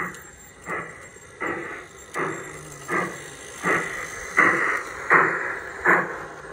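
Garden-scale model steam locomotive chuffing in a steady rhythm of about one and a half chuffs a second as it runs past. The chuffs grow louder as the engine draws nearest, about two thirds of the way in.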